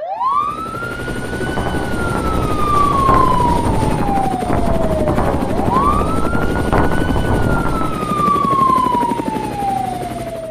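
A siren wailing in two long cycles over a low rumble. Each cycle rises quickly in pitch and then falls slowly over several seconds; the second starts about halfway through.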